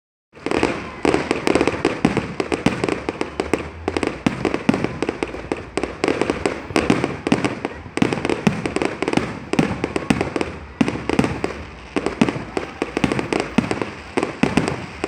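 Fireworks display going off: a dense, irregular volley of bangs and pops, many bursts a second, one on top of the next.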